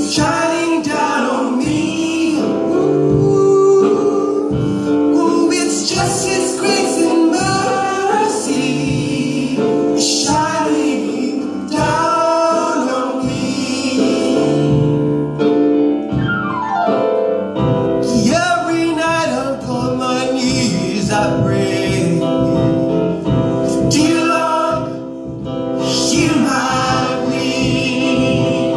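Gospel singing by a vocal group with a keyboard, sung lines gliding over held chords.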